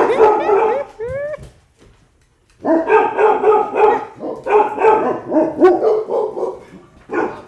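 Cane Corsos barking, yipping and whining in quick succession, with rising whimpers and a short lull about two seconds in.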